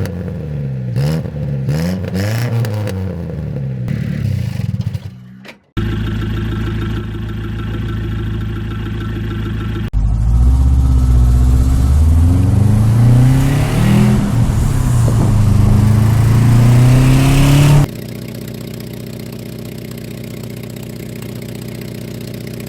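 Loud car exhaust with a corrosion hole in or ahead of the muffler, in several spliced clips: the engine revs up and down, runs steadily, revs up for several seconds with the pitch climbing, then idles.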